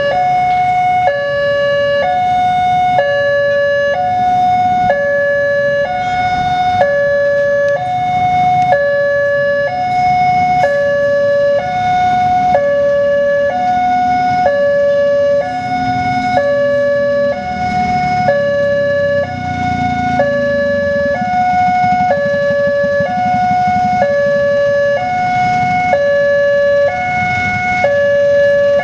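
Railway level-crossing warning siren sounding a two-tone hi-lo alarm, switching between two pitches about once a second to signal that the barriers are down for an approaching train. Road traffic rumbles underneath.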